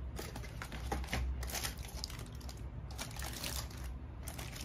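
Aluminium foil lining of a takeout box crinkling as hands unfold it, with the paper box flaps rustling, in several irregular bursts of crackling.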